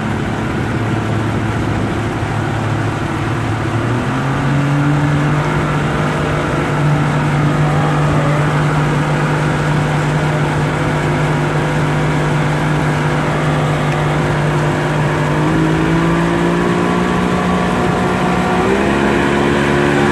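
Motorboat engine running under way while towing, with rushing water and wind over it. The engine speeds up about four seconds in, holds steady, then climbs again near the end.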